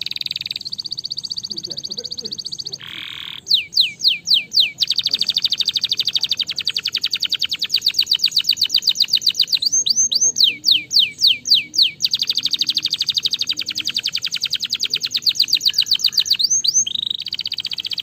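Domestic canary singing: long, fast trills broken three times by slower runs of loud down-slurred whistles, about four a second, each dropping from high to lower pitch.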